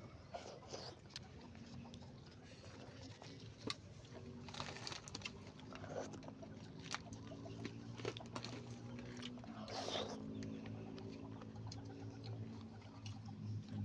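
A person chewing raw leafy greens, with small crunches and mouth clicks, over a faint low steady hum.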